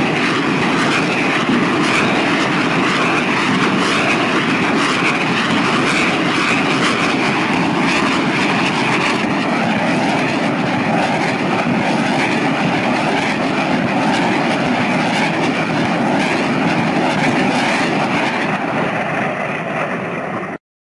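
Continuous loud roar with dense, rapid crackling: a multiple rocket launcher firing a long ripple salvo of rockets in quick succession.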